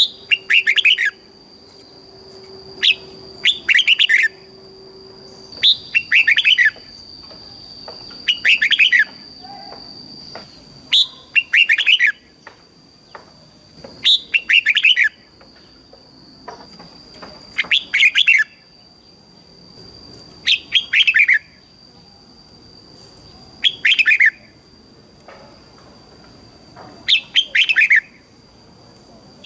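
Red-whiskered bulbul singing its bubbly phrase over and over, about once every three seconds. Each phrase is a quick note followed by a longer run of falling notes. A faint steady high whine runs underneath.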